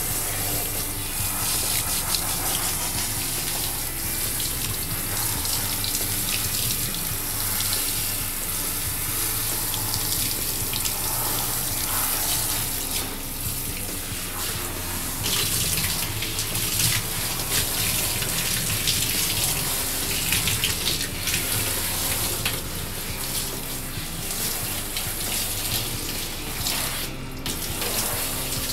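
Handheld shower running steadily, its spray splashing over a wet dog's coat and into a bathtub.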